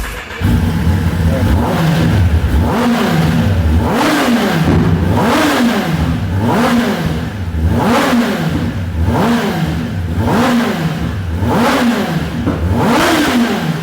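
Kawasaki ZX-10R's inline four-cylinder engine breathing through an Akrapovic exhaust, revved again and again in quick throttle blips. There are about nine rises and falls in pitch, one roughly every second and a quarter, starting about half a second in.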